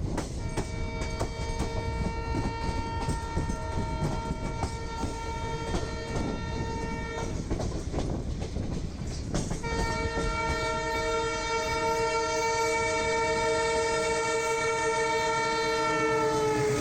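Alco WDG3A diesel locomotive's horn sounding two long, steady blasts of about seven seconds each, over rail wheels clattering across joints. The second blast drops in pitch at its end as the locomotive passes.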